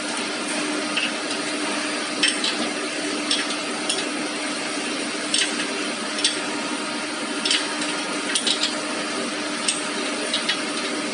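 Scattered metallic clinks and taps from hands and tools working the belt-tensioner bracket of a CD grinding machine, over a steady mechanical hum.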